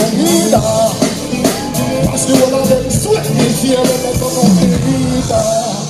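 Band music with a steady drum beat and a melodic line over it.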